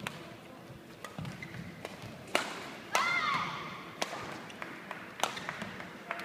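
Badminton rally: racket strings striking the shuttlecock with sharp clicks about once a second, as the two players exchange shots. A shoe squeals on the court floor about three seconds in.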